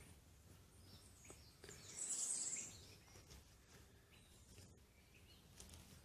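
Quiet forest ambience with faint bird chirps, and a brief high hiss about two seconds in.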